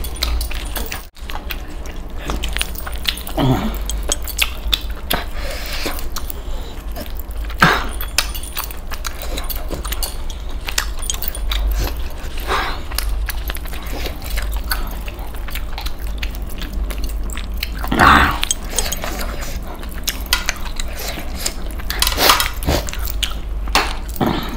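Chewing and mouth noises of someone eating spicy chicken leg pieces by hand, with wet tearing of meat off the bone and clinking of metal bracelets and rings, over a low steady hum. Several louder sudden sounds stand out among the many small clicks.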